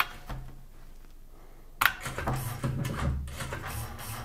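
IBM 6780 Quietwriter's print mechanism: a sharp click about two seconds in, then the printhead carriage running along the line as it prints, with a low hum and light ticks.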